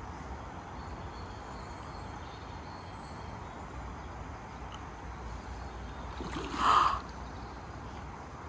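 Steady outdoor background noise with a low rumble. About six and a half seconds in, a short, louder high-pitched sound lasting about half a second.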